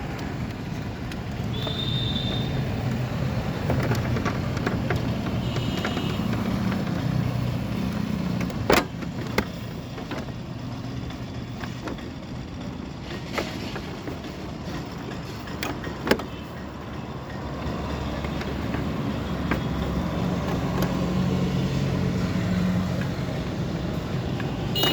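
A vehicle engine running steadily, its hum swelling and easing, with a few sharp clicks in between.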